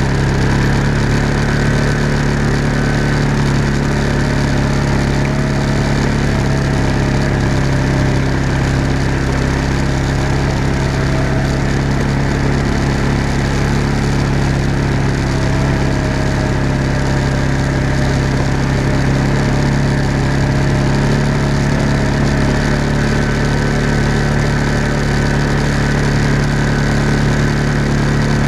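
Small off-road vehicle's engine running steadily at low, even speed, heard from on board as it drives along a dirt trail. A faint wavering whine comes and goes above the drone.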